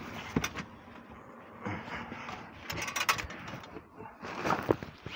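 Handling noise from a phone being moved about while it films: rustling with a few sharp clicks, heaviest in the middle and again near the end.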